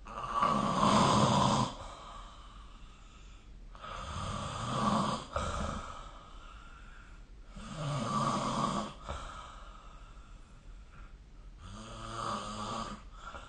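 A sleeping person snoring in a steady rhythm: four snores about four seconds apart, each lasting a second or so, with quieter breathing between them.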